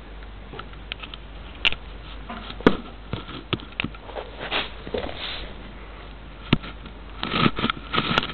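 Small ginger kitten sniffing and padding about on a laminate floor close to the microphone: scattered light clicks and taps with short breathy sniffing rustles, busiest near the end.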